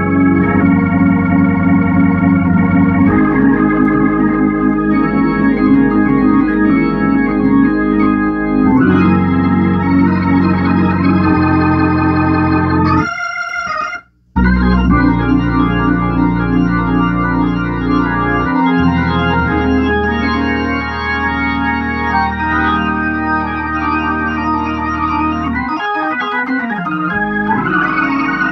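Hammond organ playing sustained chords over low bass notes through a freshly rebuilt Leslie 122 amplifier and speaker, a sound check of the rebuild. About halfway through the sound cuts out for roughly a second, then the playing resumes.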